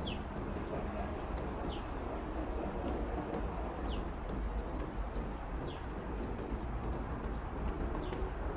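A bird repeating a short, high, falling call about every two seconds, five times, over a steady low rumble.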